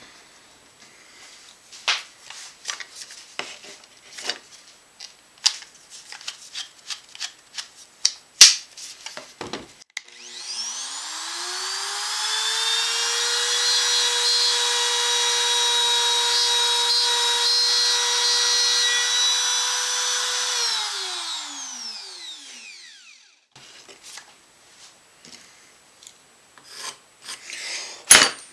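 Compact trim router switched on, spinning up with a rising whine, running at a steady pitch for about ten seconds while it cuts a wiring channel in a wooden guitar body, then switched off and winding down with a falling pitch. Before and after it come handling clicks and knocks of tools and clamps on the bench, with one sharp knock near the end.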